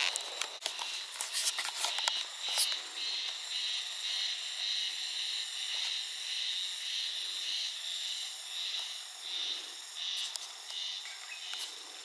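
Steady high-pitched insect chorus, with a few sharp clicks in the first few seconds.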